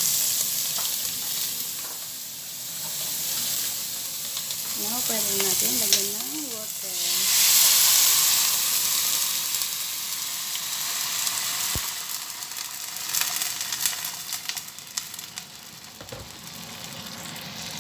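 Beef pieces sizzling as they sear in a hot pot; about seven seconds in, water poured into the pot hits the hot metal and meat with a loud hiss of steam that slowly dies away over the next several seconds.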